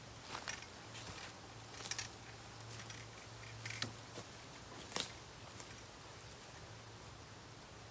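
Bamboo burning in a campfire, crackling with a handful of sharp snaps and pops over a faint steady background, the loudest pop about five seconds in.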